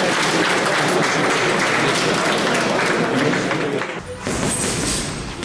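Crowd applauding, a dense steady clatter that cuts off abruptly about four seconds in, giving way to background music.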